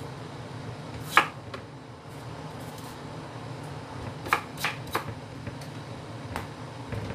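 Kitchen knife cutting tomatoes on a wooden chopping board: a sharp knock of the blade on the board about a second in, a quick run of three knocks around the middle, and one more near the end, over a steady low hum.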